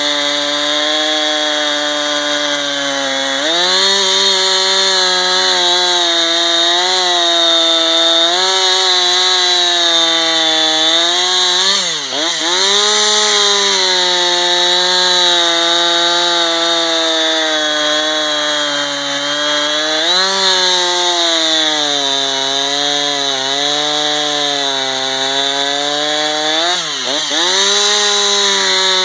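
Gas two-stroke chainsaw running at high revs while cutting wood, its engine pitch sagging and recovering under the load of the cut, with two sharp dips in pitch partway through.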